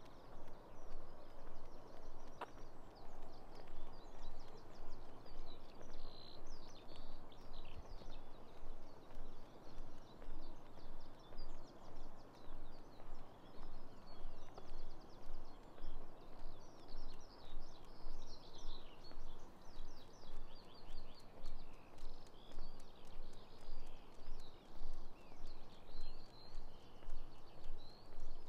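Footsteps walking at a steady pace, about two steps a second, while songbirds sing and chirp throughout.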